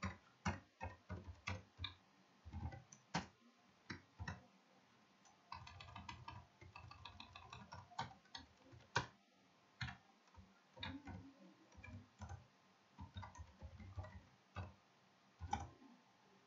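Faint keystrokes on a computer keyboard: irregular clicks, some in quick runs and some single, with short pauses between.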